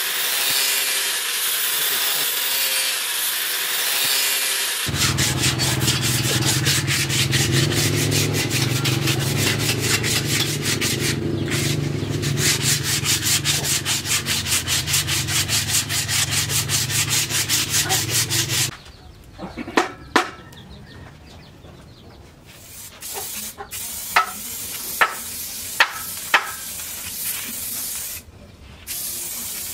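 Angle grinder with a sanding disc running against the steel axe head with an even hiss. About five seconds in it gives way to a rhythmic rubbing over a low steady hum as the wooden handle is sanded. That stops suddenly about two-thirds of the way through, leaving a quiet stretch broken by a few sharp clicks.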